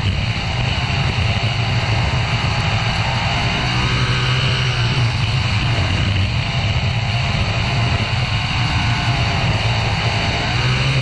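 Winged sprint car's engine running hard at racing speed on a dirt track, easing off and picking up again every few seconds through the turns, with wind rushing past the onboard microphone.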